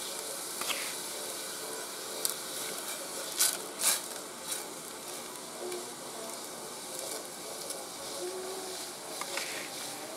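Sugar water simmering in an aluminium pot, with a steady hiss. A few sharp knocks sound over it; the loudest two come close together about three and a half seconds in.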